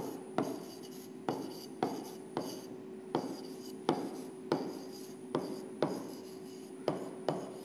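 A pen tip tapping and sliding on the glass of an interactive touchscreen display as words are written, a sharp click at each pen stroke, about two a second.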